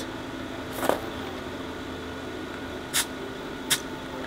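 Two short hisses of air at a travel-trailer tire's valve stem, about three and three-and-a-half seconds in, as a pressure gauge is pressed on to check the tire's cold inflation pressure.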